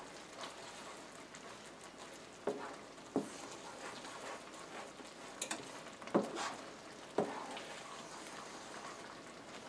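Milk gravy thickening in a shallow frying pan with a faint steady sizzle while it is stirred. A utensil scrapes and knocks against the pan about five times.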